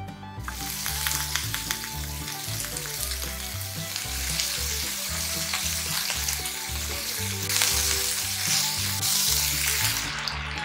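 Pork-wrapped asparagus rolls sizzling and crackling in hot rice oil in a frying pan. The sizzle starts about half a second in and thins out suddenly near the end.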